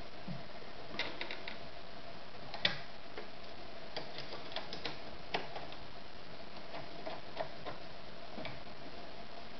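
Scattered light clicks and taps of hands working at the needle and presser foot of a Podolsk 142M sewing machine, with one sharper click a little under three seconds in. A faint steady hum runs underneath.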